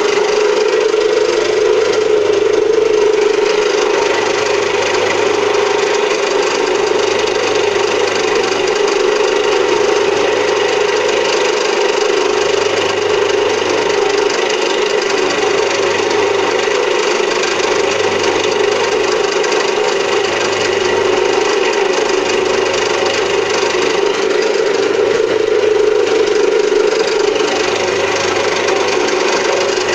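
Home-built milling machine running and cutting metal: a steady motor hum under continuous scratchy cutting noise, with a low throb repeating about every second and a half.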